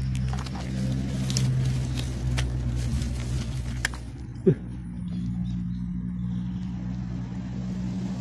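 Steady low motor hum, with scattered light clicks over the first four seconds and one short sharp sound about four and a half seconds in.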